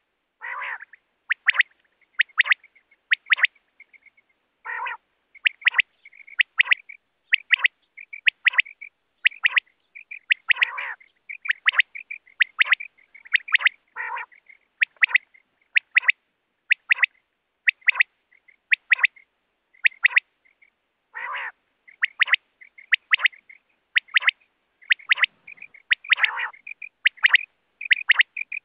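Common quail (Coturnix) song: sharp, loud three-note phrases repeated over and over, the 'wet-my-lips' call used as a hunting lure, with a lower, rougher note every few seconds.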